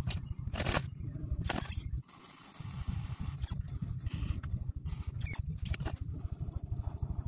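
Electric potter's wheel running with a low, fast rumble, over scratchy scraping and clicks from fingers working the rim of a leather-hard clay jar. The rumble drops out briefly about two seconds in.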